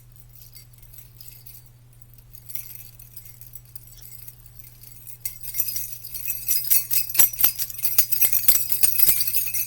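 Small jingle bells jingling, faint and sparse at first, then shaken steadily and louder from about halfway through, with many quick metallic clinks. A steady low hum runs underneath.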